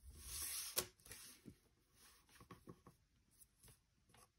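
A clear plastic drawing template slid across paper and set down with a click, then a pencil scratching out short ruled strokes along its edge.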